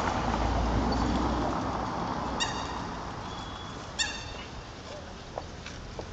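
Steady outdoor traffic noise with a low rumble that fades after about a second and a half. Two short, sharp, high-pitched calls come about a second and a half apart.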